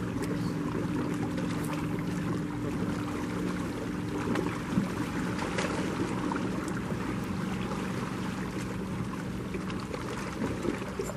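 Steady low hum of a boat's motor over the wash of water and wind. A short knock about five seconds in.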